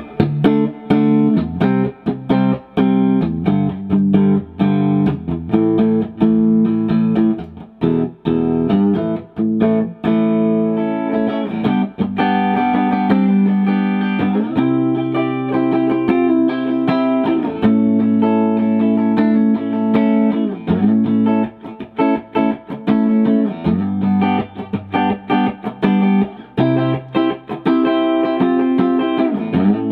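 Electric guitar, a Telecaster with its two pickups wired in series through a four-way switch's fourth position, played through an amp: picked single notes and chords, with chords left ringing more in the second half. The series wiring gives a humbucker-like tone.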